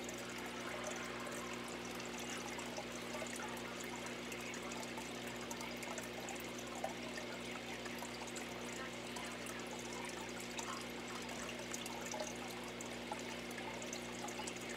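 Steady hiss with a low, even hum underneath and a few faint scattered clicks.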